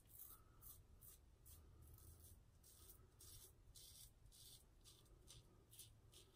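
Vintage Gillette Tech double-edge safety razor scraping through lathered stubble in short, quick strokes, about two a second, faint and scratchy.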